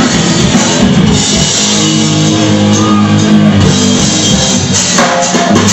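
Loud rock music: electric guitar chords over drums, with sharp drum hits near the end.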